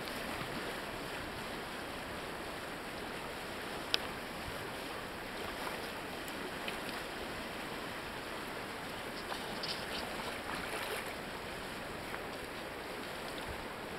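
Steady rush of shallow river current rippling over stones, with one short sharp click about four seconds in.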